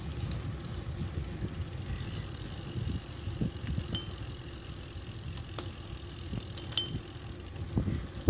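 Low rumble of wind on the microphone and bicycle tyres rolling over asphalt, with scattered small clicks and rattles. A sharp knock at the very end.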